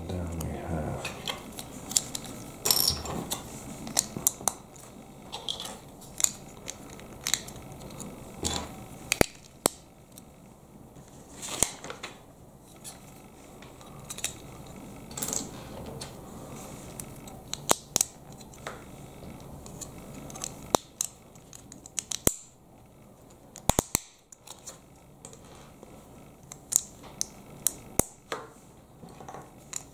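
LEGO bricks being handled and pressed together: irregular sharp plastic clicks and snaps, with a soft rustle of handling in the first second or so.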